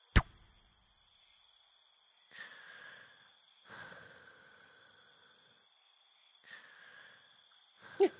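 Night ambience of steady chirping crickets, opened by a single sharp click. Then come three soft breaths of a sleeping cartoon character, a few seconds apart, and a brief vocal sound near the end.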